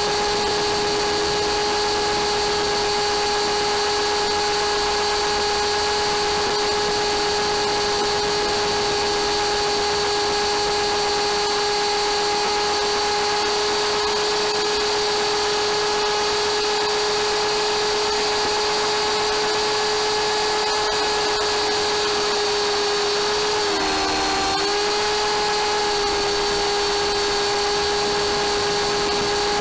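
Electric motor and rotor of an MSH Mini Protos RC helicopter, heard from its onboard camera: a steady high whine with rushing noise from the rotor. About 24 seconds in, the pitch dips briefly and then comes back up.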